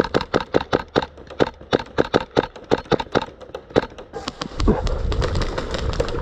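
Airsoft gunfire: a rapid string of sharp shots, about five or six a second, that stops about four seconds in. Then a low rumbling noise, like wind or movement on the microphone.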